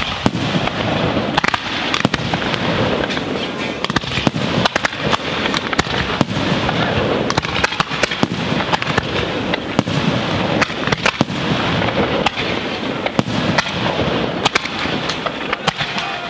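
Fireworks battery alla bolognese going off: a dense, unbroken barrage of crackling and sharp bangs.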